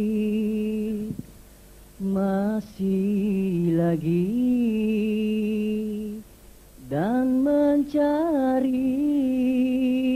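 A solo male voice sings long, drawn-out, ornamented phrases without accompaniment, breaking off for short pauses between them: the tok juara (lead singer) opening a dikir barat performance.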